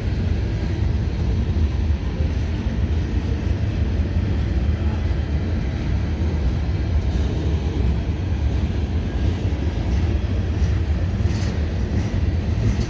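Freight train cars rolling slowly past, a steady low rumble of wheels on the rails.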